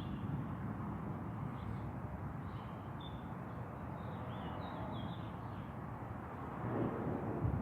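Steady hiss of falling rain with a few short bird chirps in the middle, and a low rumble of thunder swelling near the end.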